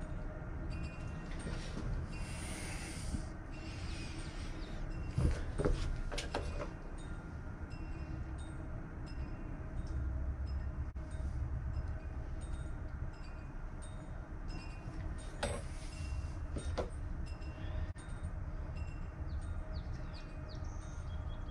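Steady low outdoor rumble with a few light clicks and taps as 3D-printed plastic letter patterns are drawn out of a rammed green-sand mould. There are clicks about five seconds in and twice more about sixteen seconds in.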